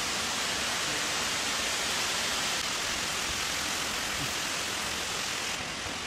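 Steady rushing of the Buracão waterfall, an even hiss of falling water that fills the canyon.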